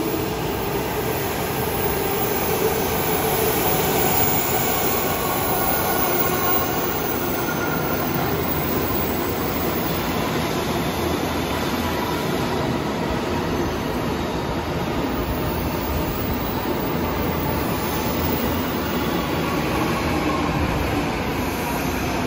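Tokyo Metro Tozai Line subway train running into an underground station and braking to a stop: a steady rumble of wheels and motors, with a faint falling whine near the end as it slows.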